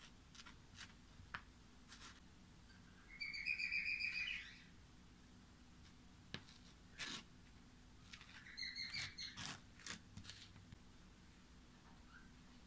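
A spatula knife spreading cream cheese on toast, with light scrapes and taps on the dry crust. Twice a small bird twitters in short, rapid trills: the first, a little after three seconds, is the loudest sound; the second comes near the two-thirds mark.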